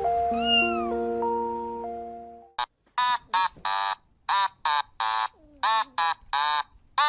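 A children's song fades out, and from about two and a half seconds in a cat meows over and over in short calls, about two a second.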